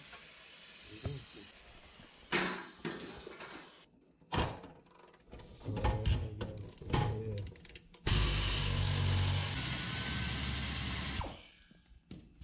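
A pneumatic air tool runs in one steady burst of about three seconds, starting about two thirds of the way in, working on the truck's front suspension metal. Before it come scattered metallic knocks and clanks from handling tools and parts.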